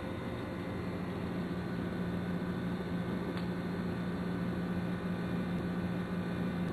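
Steady low hum over an even background hiss, with a single faint tick about three and a half seconds in; no meowing.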